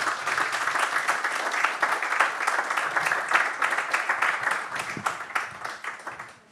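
Audience applauding: dense, steady clapping that dies away over the last two seconds.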